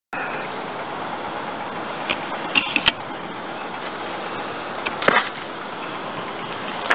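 Short, sharp snaps and thuds from a Bajiquan practitioner's strikes and foot stamps: a few near the two- to three-second mark, a stronger one about five seconds in, and another at the end. They sit over a steady background rush.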